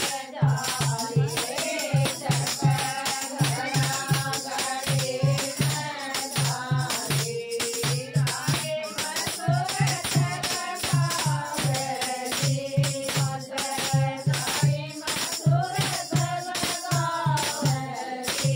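Women's voices singing to a steady beat on a dholak, with handheld plastic clappers shaken and rattled in time.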